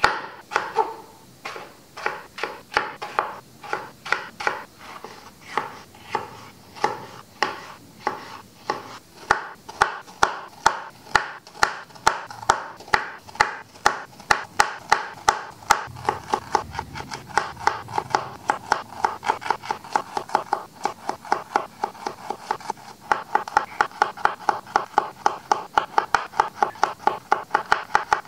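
Kitchen knife chopping vegetables and garlic cloves on a wooden cutting board: steady crisp cuts, each ending in a knock on the board, about two a second, quickening to about three a second near the end.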